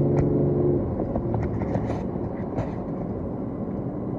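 Car running on the road, heard from inside the cabin: a steady rumble of engine and road noise, with a steady hum during the first second.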